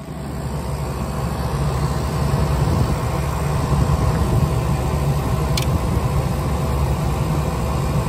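IDYLIS 12k BTU portable air conditioner running in cooling mode, heard close at its rear grille: the rotary compressor and condenser fan make a steady low hum with a rushing of air. It grows louder over the first two seconds, then holds steady.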